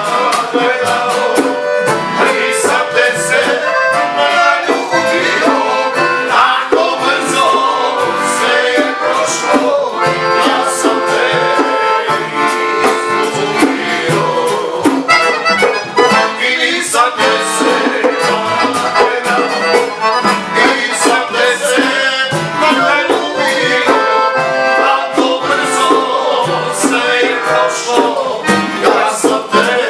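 A small acoustic band playing, with a piano accordion carrying the melody over double bass, acoustic guitar and conga drums and a steady beat.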